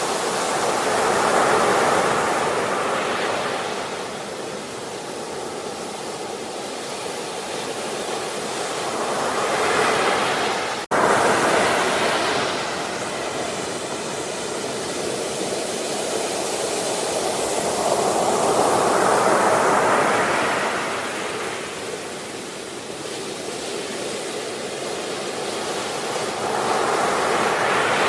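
Sea waves breaking and washing up the shore, the surf swelling and fading about every eight to nine seconds. About eleven seconds in the sound cuts out for an instant and resumes abruptly, like a splice in a looped recording.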